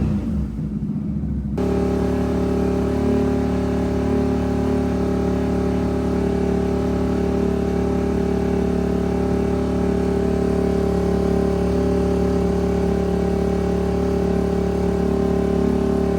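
CFMOTO CFORCE 1000's V-twin engine running through Team MSC cat-delete headers, settling about a second and a half in into a steady, even note held at one engine speed.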